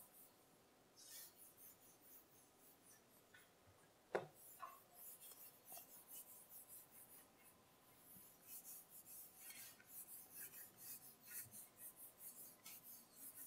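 Whiteboard eraser rubbing across the board, faint scratchy strokes that become a quick run of back-and-forth wipes over the last few seconds. One sharp knock about four seconds in.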